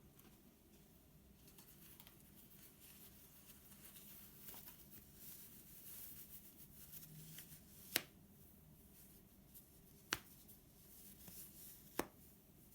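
Quiet handling of a watch's packaging: faint rustling and light taps, then three sharp clicks about two seconds apart near the end.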